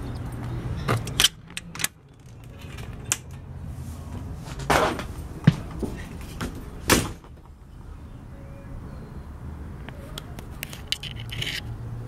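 Scattered sharp clicks and knocks as a pop-up camper's entry door is unlatched and opened and someone climbs inside, over a steady low hum.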